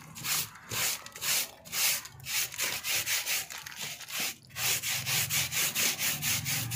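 Stiff hand brush scrubbing the dry, dust-caked honeycomb cooling pad of an air cooler with quick scratchy back-and-forth strokes, loosening the mud that clogs its holes. The strokes come in uneven bursts at first, then settle about two-thirds of the way in to a steady rhythm of about five a second.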